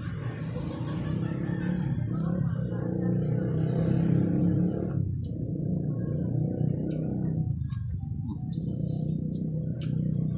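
Mukbang eating sounds: chewing with sharp lip smacks and mouth clicks in the second half, from a mouthful of rice and jengkol eaten by hand. Under them runs a steady low hum.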